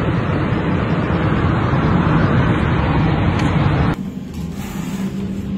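Strong tornado wind blowing across a phone microphone: a loud, steady rush of noise. It cuts off suddenly about four seconds in, leaving a quieter steady hum.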